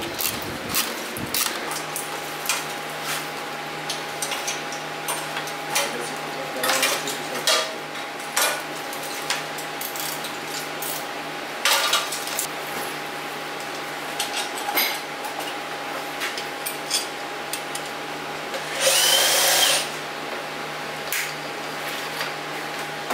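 Metal clinks and knocks of hand tools and parts as a scooter is unbolted and stripped to its frame, over a steady hum. A cordless drill runs once for under a second about nineteen seconds in, the loudest sound.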